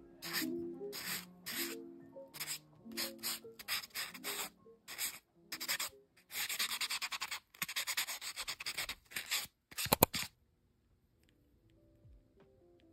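A sponge nail buffer block rubbed over fingernails in short, quick scratchy strokes, with a longer run of strokes about halfway through. Soft lofi music plays underneath. A couple of sharp clicks just after ten seconds are the loudest sound, and then the buffing stops.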